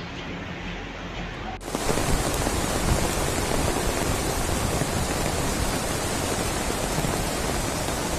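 Loud, steady rushing of water. About one and a half seconds in, a cut switches from a quieter, duller stretch of noise to the full, louder rush.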